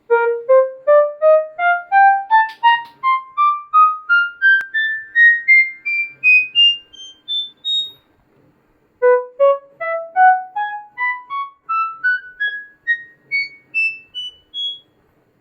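Yamaha YMK-80 marching keyboard sounding single notes one after another in a rising scale, about two to three notes a second, climbing roughly three octaves. After a brief pause about eight seconds in, a second rising run of notes starts from the same low note.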